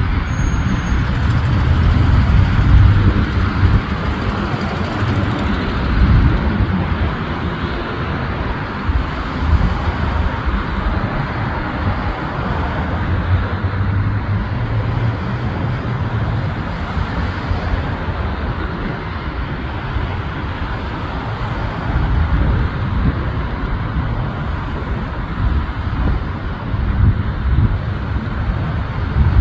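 Steady road traffic noise, with a low rumble that swells and fades now and then.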